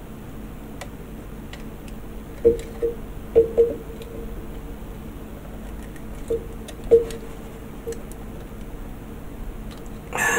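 Scattered soft taps and clicks of plastic model parts and small tools being handled at a workbench, a few close together at a time, over a faint steady hiss.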